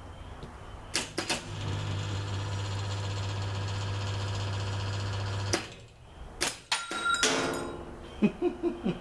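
Stripped arc-welder transformer humming loudly under a dead short through an aluminium heat sink clamped across its secondary leads, with crackling at the contacts. The hum cuts off suddenly after about four seconds as the heat sink gives way, followed by scattered metallic clicks and knocks.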